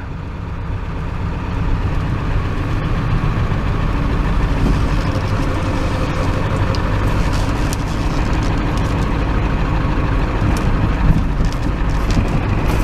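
Pickup truck running, heard from inside the cab: steady engine and road noise, with a few light clicks near the end.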